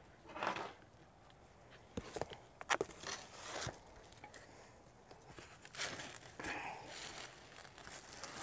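A piece of cardboard being handled and slid under a heavy potted container on a table: faint, scattered rustling and scraping, with a few light knocks about two to four seconds in.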